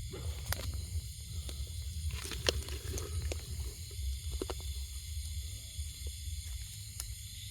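Scattered short rustles and clicks, the loudest about two and a half seconds in, over a steady high hiss and a low rumble: plants handled and pushed aside while searching for millipedes.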